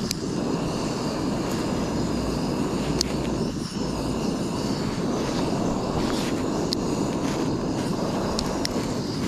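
Portable gas camping stove burner running with a steady roar under a pot of water coming to the boil, with a few light ticks.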